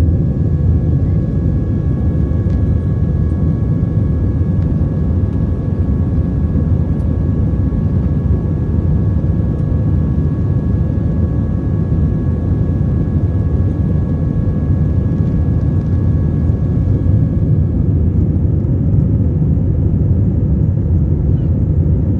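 Steady cabin noise of an airliner climbing after takeoff: engines and airflow make a low, even drone, with two faint steady high tones over it.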